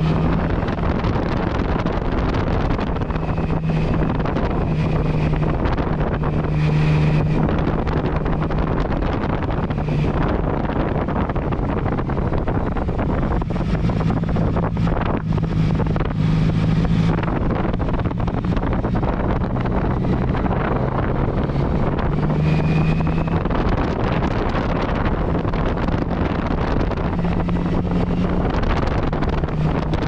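Yamaha MT-09 Tracer's inline three-cylinder engine running at a steady cruise while riding, its hum shifting slightly in pitch, under heavy wind rush on the microphone.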